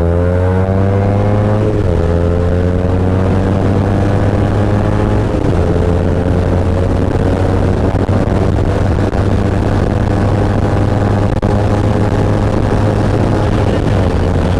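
Kawasaki Z250's parallel-twin engine accelerating hard, its pitch climbing with two quick upshifts about two and five and a half seconds in, then holding steady high revs at speed.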